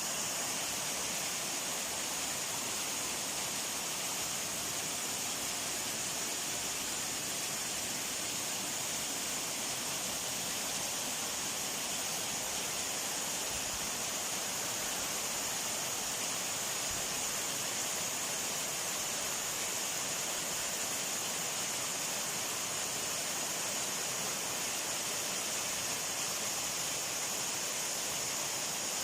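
Waterfall: a steady, even rush of falling water, heaviest in the high hiss.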